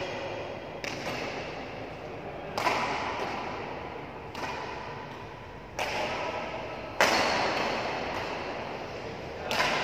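Badminton rackets striking a shuttlecock in a doubles rally: six sharp hits about one to two seconds apart, each echoing in a large hall. The hit about seven seconds in is the loudest.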